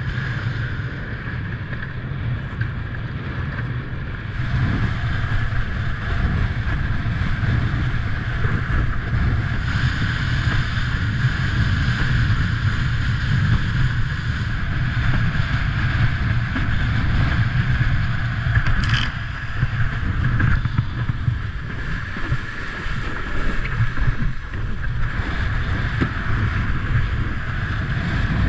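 Wind buffeting the action camera's microphone over the rush and slap of water under a windsurf board sailing fast in gusty wind, with a steady high whine throughout. A brief sharp tick comes about two-thirds of the way through.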